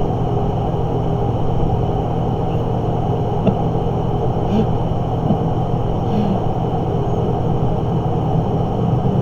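Steady low mechanical hum with an even rumble and a few faint ticks.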